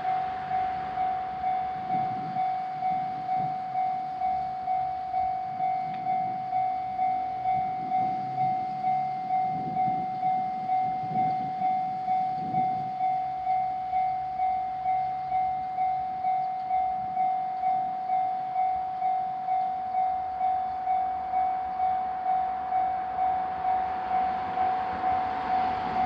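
Japanese level-crossing alarm ringing its electronic bell, a steady repeating ding at about three strikes every two seconds, signalling that a train is approaching or passing.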